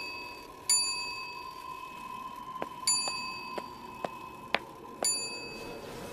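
A small bell-like ding struck three times, about two seconds apart, each ringing briefly, with a few sharp clicks in between and a faint steady tone underneath.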